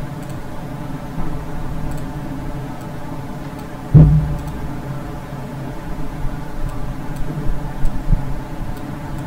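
Steady low hum and hiss of a computer recording microphone, with a few faint mouse clicks. A single louder thump comes about four seconds in.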